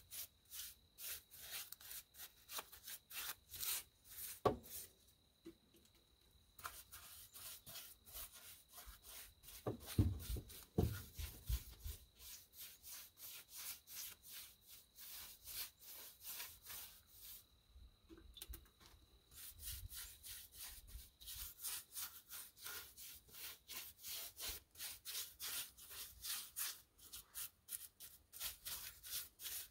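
Paintbrush bristles scrubbing a wet finish into rough log wood in quick repeated strokes, a soft scratchy rubbing about three strokes a second. A few dull knocks come about a third of the way in.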